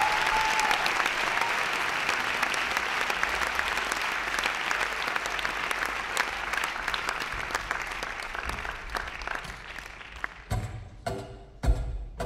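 Theatre audience applauding, with a short whistle at the start; the clapping thins out and fades away. About ten seconds in, the band starts the song with short, sharp notes that have a deep low end.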